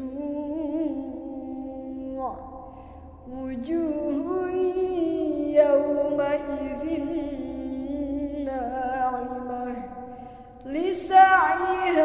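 A woman's solo voice reciting the Qur'an in melodic tajwid style, in the Kurdi maqam. It runs in long, ornamented phrases that glide up and down in pitch, with short breaks for breath about two and a half seconds in and again near the end.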